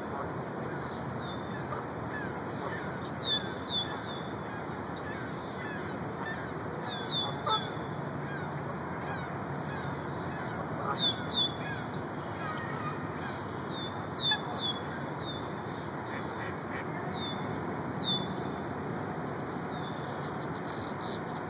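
Red-winged blackbird calling: short, sharp chips, mostly in pairs, repeating every three to four seconds over a steady hiss of background noise.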